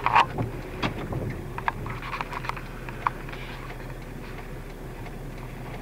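Raindrops ticking on a car's body and glass over the steady low hum of the vehicle. The ticks are scattered and come thickest in the first three seconds, the loudest just after the start.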